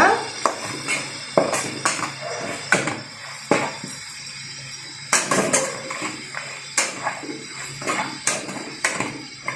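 A metal spatula knocking and scraping against a large metal kadai while stirring thick mutton fry, with irregular clanks every half second to a second.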